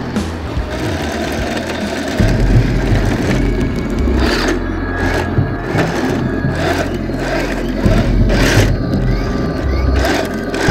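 Radio-controlled model M1 Abrams tank with its electric drive motors whirring and its tracks grinding over loose rocks as it climbs a dirt bank, with a few sharp crunches of stones. Background music plays throughout.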